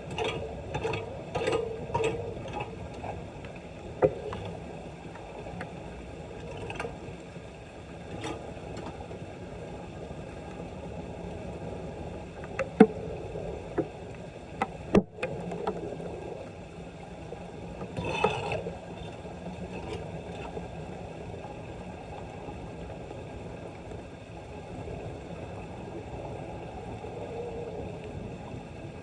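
Floodwater sloshing and draining in a flooded street drain, a steady wash of water noise. There are splashes in the first couple of seconds and again past the middle, and a few sharp knocks.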